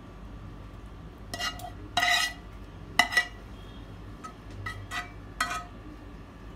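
Metal slotted spoon scraping and clinking against a metal pan and a serving bowl as gravy is spooned out: a string of short, ringing clinks, the loudest about two and three seconds in.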